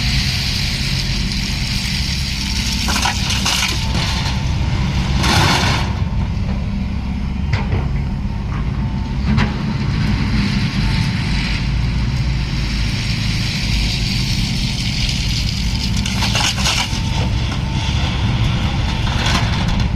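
SANY excavator's diesel engine running steadily under load, with sharp clanks and crunching cracks every few seconds as the machine works.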